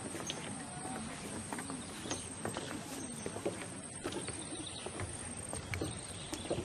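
Footsteps knocking irregularly on wooden boardwalk planks, with a steady high-pitched whine behind them.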